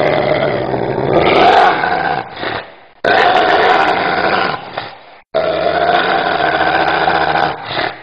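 A menacing dog snarling and growling in three long bouts, each lasting about two and a half seconds with short gaps between.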